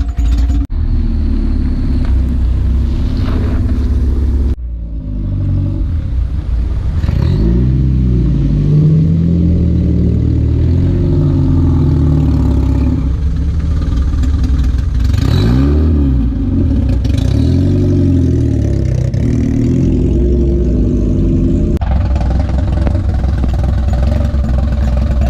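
Honda Civic engine with a rod knock, running under load and revving, its pitch rising and falling twice, in several clips cut abruptly together.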